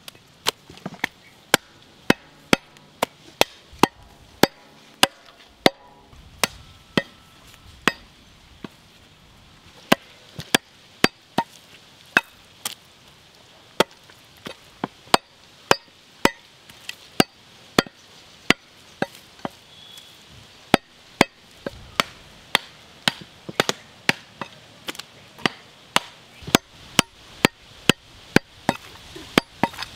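A machete chopping goat meat and rib bones on a wooden log chopping block: a long run of sharp chops, about one to two a second.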